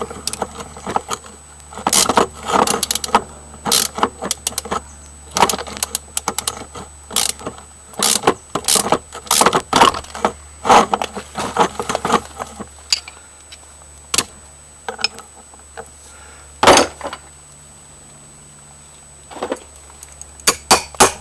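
A steel socket wrench and an adjustable spanner clink and clank against the nuts and bolt of a rusty sidecar suspension unit as the nuts are worked loose. The clicks and knocks come irregularly, some in quick clusters, with one louder clank about three-quarters of the way through.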